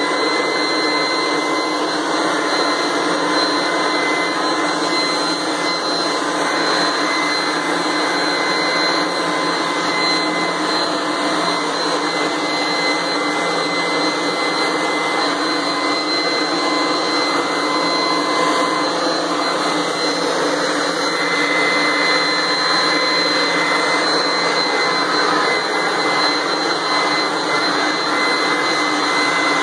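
Craftsman leaf blower running steadily at full speed, a loud rush of air with a steady high whine over it, blowing dust out of an open computer case.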